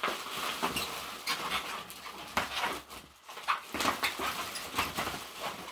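Bubble wrap rustling and crinkling in irregular bursts as it is handled and pulled out of a cardboard shipping box.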